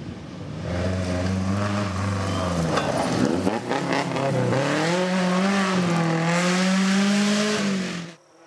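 A rally car passes on a gravel stage with its engine at high revs, over the hiss of its tyres throwing gravel. The engine note dips briefly about four and a half seconds in, then climbs and holds before cutting off abruptly near the end.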